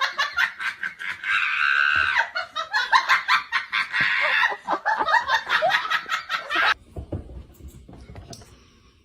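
A person laughing hard in quick repeated bursts, which cut off abruptly about two-thirds of the way through, leaving faint room noise and a few small clicks.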